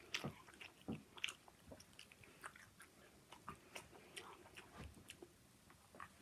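Faint chewing of a mouthful of sausage being eaten fast, with scattered small wet mouth clicks.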